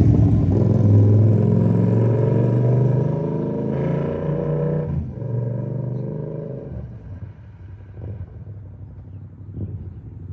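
Yamaha R7 parallel-twin engine through an aftermarket SC Project-style exhaust with the dB killer removed, pulling hard under acceleration. It fades away after about five seconds to a quieter running note.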